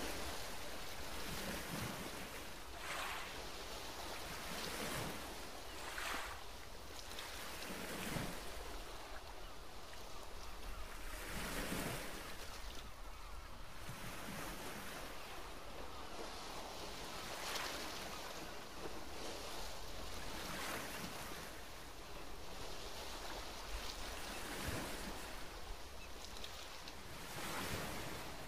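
Ocean waves washing in a steady rush that swells and eases every few seconds.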